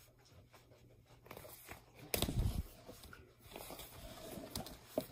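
A hardcover picture book being handled and turned around: a soft thud about two seconds in, then light rustling and a couple of small clicks.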